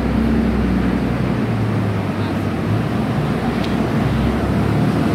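Siemens SD660 light rail train (TriMet MAX Type 2), two cars coupled, running past on street track with a steady low hum.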